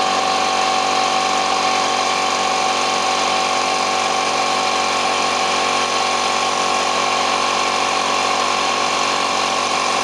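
A workshop machine running steadily: a continuous mechanical noise with a steady whine on top, during a motorcycle tyre change.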